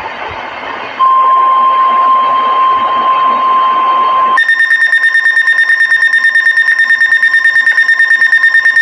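Eton Zoneguard weather radio during a NOAA Weather Radio Required Weekly Test: about a second of hiss, then a steady single-pitch alert tone for some three seconds, then the radio's own alarm cutting in with rapid, shrill beeping, about eight beeps a second.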